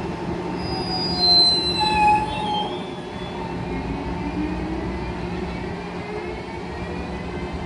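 Renfe Alvia Talgo passenger train pulling out of the station: several high wheel squeals in the first few seconds, then a steady running hum as it moves off.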